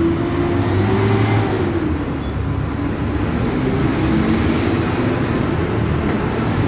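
TATSA city bus running, its engine and drivetrain giving a steady low rumble with a whine that rises and falls gently in pitch.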